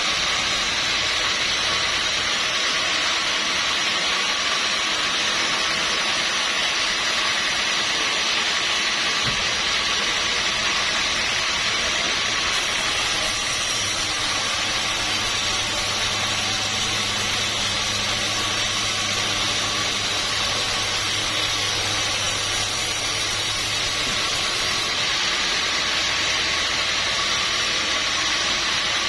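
Sawmill machinery running steadily, most likely a band saw mill sawing a teak log, giving a constant hiss with a low motor hum that fades and returns.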